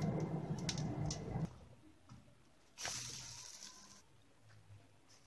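A low steady hum stops abruptly about a second and a half in. About three seconds in, a sudden sizzle rises from a hot buttered pan and fades over about a second.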